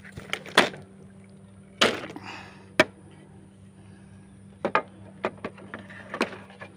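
Sharp clicks and clatters as a mesh bag of blood cockles is handled and hooked onto a motorbike's front wire basket: the shells knock together and against the wire. There are about seven knocks, the loudest about two seconds in, with a faint steady hum underneath.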